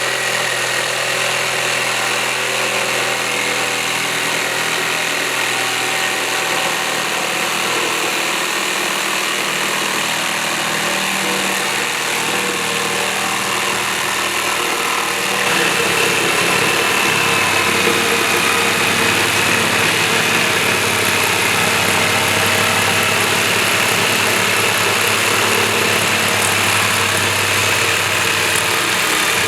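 Electric jigsaw running and cutting wood, a continuous steady motor drone. About halfway through it grows a little louder and takes on a lower hum.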